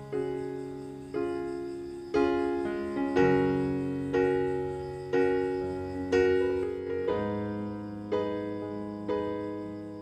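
Background music: gentle piano chords struck about once a second, each left to ring and fade before the next.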